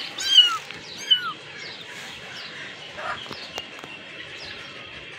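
Young kitten mewing: high-pitched calls that fall in pitch, two loud ones in the first second or so, then a string of fainter ones over the next few seconds.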